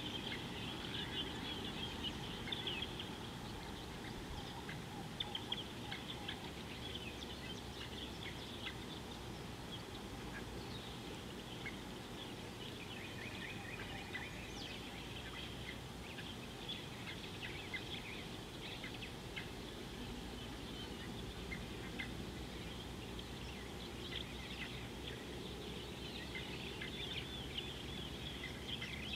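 Many birds chirping and calling in a continuous chorus of short, high calls, over a low steady background rumble.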